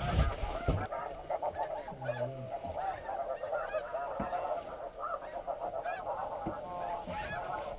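A flock of snow geese honking, many short calls overlapping without pause. A couple of low thumps come in the first second.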